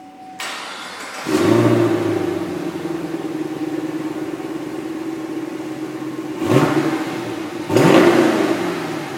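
Chevrolet Camaro 6.2-litre V8 starting up: the engine catches with a loud flare and settles into a steady idle. Near the end the throttle is blipped twice, two short revs that rise and fall back.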